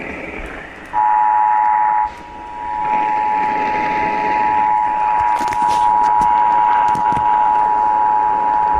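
Emergency Alert System attention signal: the two-tone alert (853 and 960 Hz together) comes in about a second in and holds steadily for about eight seconds, with a brief dip in level early on, over radio hiss. It announces an EAS warning message.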